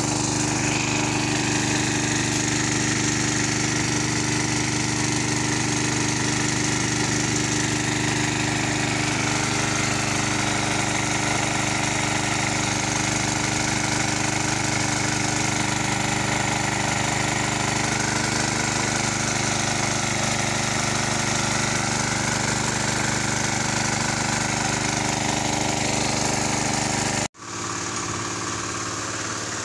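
Small petrol-engine water pump running steadily at one speed, feeding water through a hose into a hand-drilled borehole. A brief break near the end, after which the engine carries on a little quieter.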